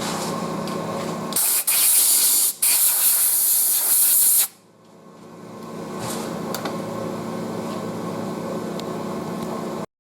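Lathe running with a steady hum. About a second and a half in, a loud spraying hiss comes in three short blasts for about three seconds. The hum then builds back up over about a second and cuts off suddenly near the end.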